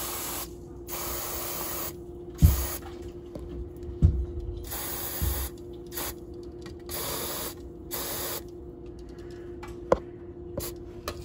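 Aerosol can of penetrating lubricant sprayed through its straw in about six short hissing bursts, with a couple of dull knocks in between and a sharp click near the end.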